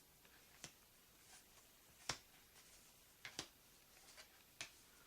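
Game cards being counted out and laid down one at a time: about five short, sharp taps at uneven intervals over faint room hiss.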